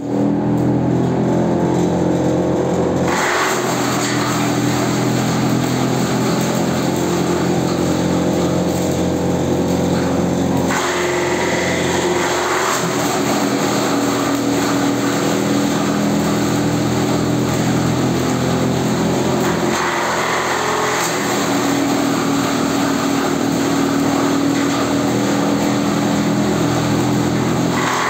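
Electric-motor-driven date palm frond shredder running steadily, its belt-driven rotor giving a loud, even machine hum. The sound turns rougher and harsher about 3, 11 and 20 seconds in, as fronds are fed in and chopped.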